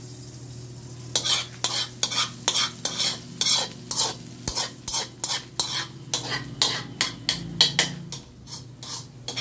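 Metal spoon stirring sautéing onions, garlic and green chilies in a wok, clinking and scraping against the pan about three times a second from about a second in. Under it is a light sizzle of frying.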